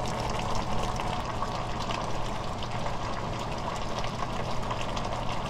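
Braising sauce of a hairtail and potato stew bubbling in a pot: a dense run of small irregular pops over a steady low hum.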